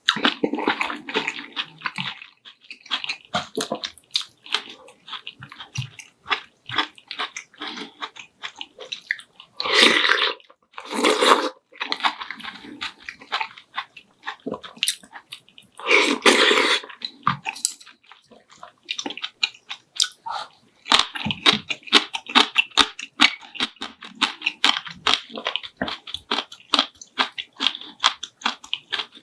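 Close-miked eating: chewing and crunching in quick, irregular clicks, with a few louder, longer bursts about ten, eleven and sixteen seconds in.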